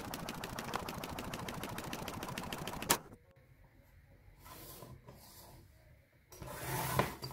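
Printer running with a rapid, even ticking as it feeds and prints a sheet of thick paper, ending in a sharp click about three seconds in. Quieter paper handling follows, and near the end comes the rasp of a paper trimmer's blade sliding along to cut the sheet.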